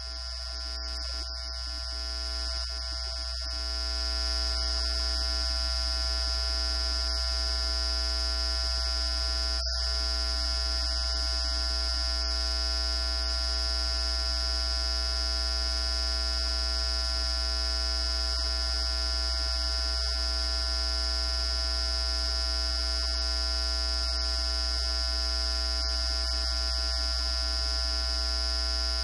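Steady electrical hum and buzz: a low hum with a high whine and many fixed tones above it. It grows louder over the first four seconds, then holds steady.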